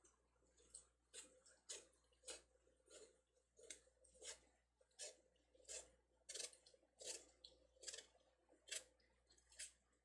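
Kitchen knife peeling the rind off a Korean melon: faint, short scraping strokes of the blade through the skin, about two a second.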